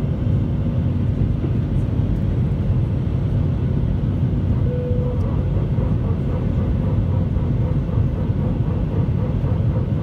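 Steady cabin noise of an Airbus A320 in flight, heard from a seat over the wing: the low, even roar of the engines and the airflow along the fuselage.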